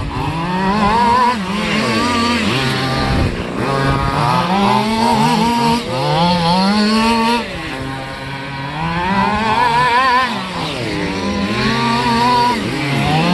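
Several radio-controlled race cars' small engines buzzing around a dirt track, their pitch rising and falling over and over as the cars accelerate down the straight and back off for the turns. A few engines overlap at once, dropping a little quieter for about a second around the middle.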